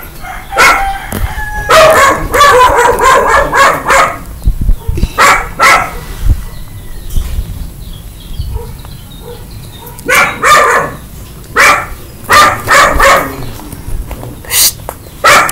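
A dog barking loudly and repeatedly, in bouts of short barks with a quieter spell of a few seconds in the middle.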